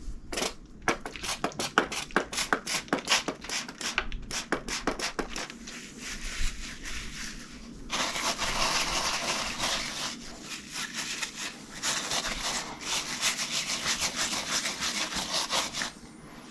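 Stiff scrubbing brush scrubbed back and forth over wet, soapy shirt fabric, in separate quick strokes, several a second, at first, then in faster, continuous scrubbing from about halfway through.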